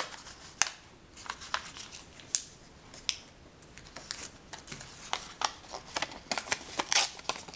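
A small square of post-it note paper folded and creased by hand: irregular crisp crackles and rustles of paper, the loudest cluster near the end.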